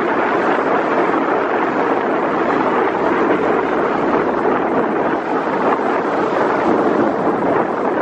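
Steady noise of a motorboat underway: the engine running evenly, mixed with wind buffeting the microphone.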